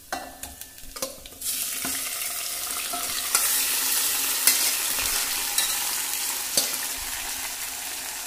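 Marinated mutton tipped from a steel bowl into hot oil and browned onions in a steel pot: a few knocks as the bowl and first pieces land, then a loud sizzle starts about a second and a half in and slowly dies down, with occasional pops.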